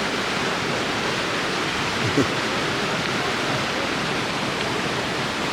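Steady, even rush of river water cascading over rocks into a pool, the constant sound of a small waterfall.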